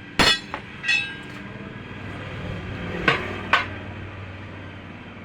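Sharp metallic clanks of steel tools striking a tractor wheel's steel rim while a tyre is being worked off it, four in all: two in the first second, the first the loudest with a brief ring, then two more close together about three seconds in.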